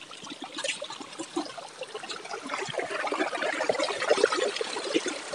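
Shallow stream trickling and splashing over rocks, growing louder over the first few seconds.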